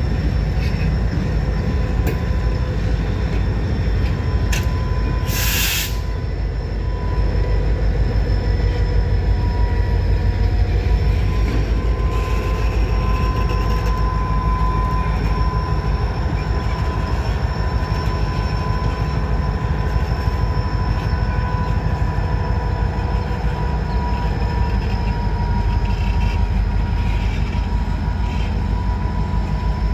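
Freight train cars rolling past with a steady heavy rumble, and a thin high wheel squeal holding on for most of the passage. A short hiss cuts through about five and a half seconds in.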